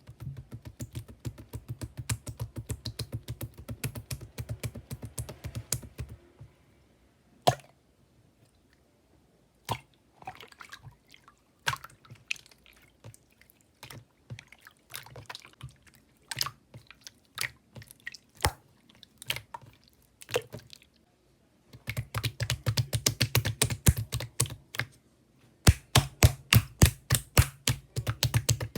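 Slime being squished and pressed by hand, giving rapid clicks and pops of trapped air. The clicking is fast and dense at the start and again over the last several seconds, with sparser single pops in between.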